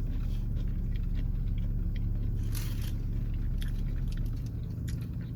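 Close-up chewing and crunching of a fried chicken and glazed donut sandwich, with scattered small clicks and one louder crunch about two and a half seconds in. A steady low hum from the idling car engine runs underneath.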